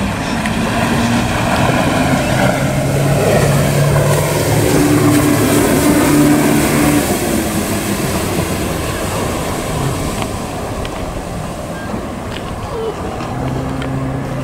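Yamaha 100 hp two-stroke outboard running at speed as a rigid inflatable boat planes past, over a dense hiss of spray and wind. The sound is loudest about halfway through and eases off toward the end.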